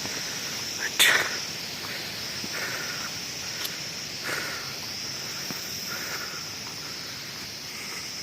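Insects chirring steadily at a high pitch, with one sharp knock about a second in and a few soft scuffs after it.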